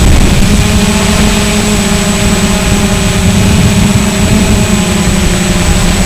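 WLToys V686G quadcopter's electric motors and propellers running steadily in flight, a dense buzzing hum of several held tones, with wind rumbling underneath.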